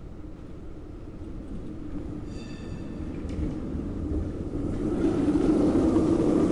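Tram running on rails and drawing closer, its rumble growing steadily louder. There is a brief high-pitched tone about two seconds in, then a click, and the rumble swells further near the end.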